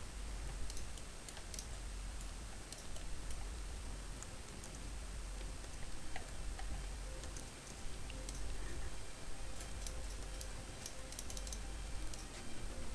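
Scattered, irregular clicks of a computer mouse and keyboard being used, over a steady low hum and hiss.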